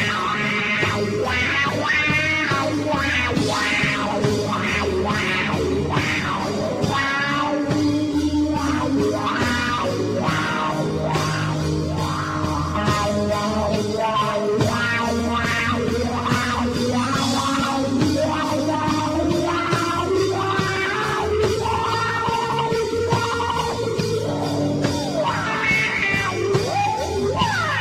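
A rock band playing live psychedelic rock: electric guitar and drums, with long held notes that bend in pitch and sliding notes near the end.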